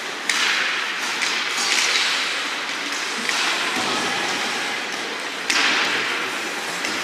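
Ice hockey play on the rink: skate blades scraping the ice in bursts of hiss, with sharp knocks just after the start and again about five and a half seconds in.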